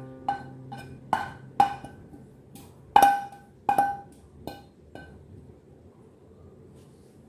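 A frying pan being knocked against a ceramic bowl to shake food out: about ten sharp, ringing clinks at uneven intervals, the loudest about three seconds in, stopping about five seconds in.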